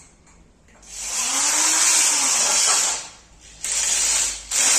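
Corded electric drill driving a fastener into the bed frame: the motor spins up with a rising whine about a second in and runs for about two seconds, then two shorter bursts follow.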